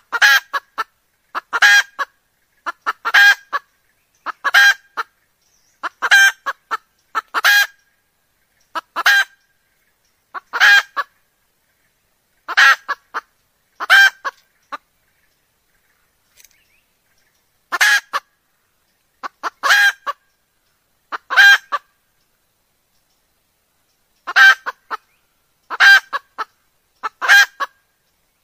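Hen junglefowl calling: short, harsh, pitched calls repeated about every one and a half seconds, some doubled, with a couple of longer pauses. A hen call of the kind used to draw in wild junglefowl.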